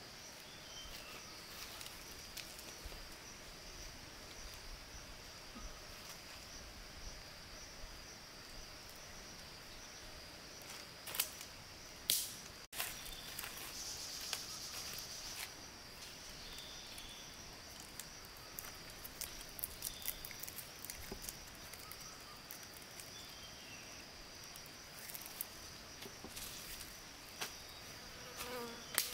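Forest ambience: a steady high-pitched insect chorus, with scattered light clicks and knocks and two sharper snaps about eleven and twelve seconds in.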